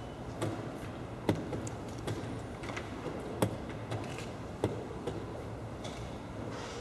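Blitz draughts play: irregular sharp clicks and knocks, about one a second, as pieces are set down on the board and the game clock's buttons are pressed, over a steady low hum.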